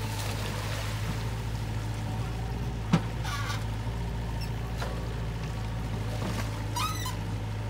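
Compact crawler excavator's diesel engine running at a steady drone while the bucket works wet pond mud, with one sharp knock about three seconds in.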